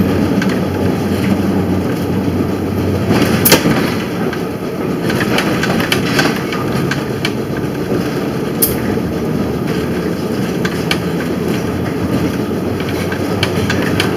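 Electric streetcar running along the track: a steady rumble with sharp clicks and knocks, a loud one about three and a half seconds in and another near nine seconds.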